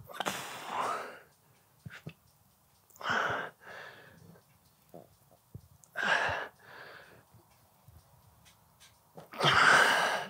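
A man breathing hard through a set of heavy barbell hip thrusts: a loud, forceful breath, often a breath out and back in, with each rep, roughly every three seconds.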